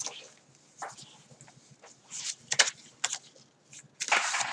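Paper handling: the journal's hand-dyed paper pages and tags rustling as a tag is handled in a pocket and a page is turned, with several short, sharp rustles and a longer swish near the end.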